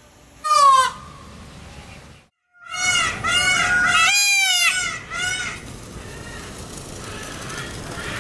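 Peacock calling: one loud call falling in pitch about half a second in, then, after a brief break, a quick run of short repeated calls lasting about three seconds.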